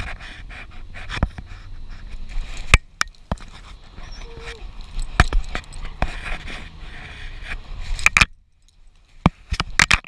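Handling noise on a GoPro being nosed and brushed by a dog: a stream of sharp clicks, knocks and rubbing against the camera housing. Under it runs a low vehicle rumble that drops away about eight seconds in, leaving only a few loud clicks.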